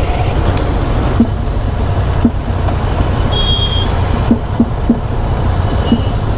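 Steady low rumble of idling motorcycles and passing road traffic, with a few short thuds and one brief high beep about three and a half seconds in.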